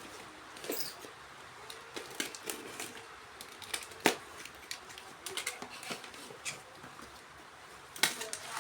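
Handling of a DVB-T2 set-top box and its packaging: scattered clicks and rustles, with a sharp click about four seconds in and another near the end.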